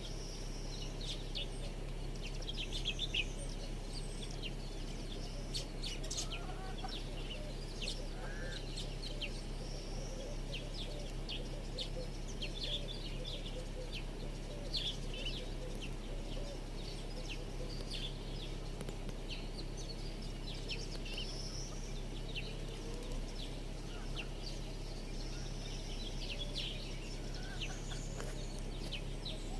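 Many small birds chirping and calling in short, scattered notes, over a steady low hum.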